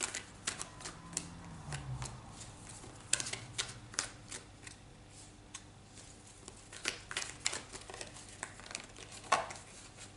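Tarot cards being handled and shuffled in the hands: irregular light clicks and snaps of card on card, with a louder snap near the end.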